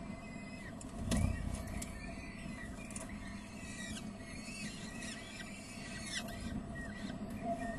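Peregrine falcon nestlings begging while an adult feeds them: many short, high squeaky calls, several falling in pitch, over a steady low background. A dull thump about a second in.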